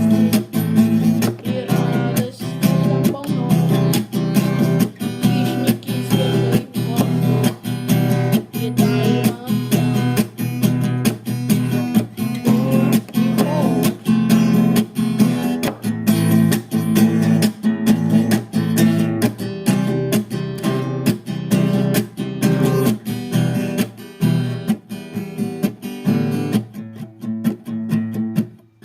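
Instrumental music: an acoustic guitar strummed in a steady, even rhythm, with no singing.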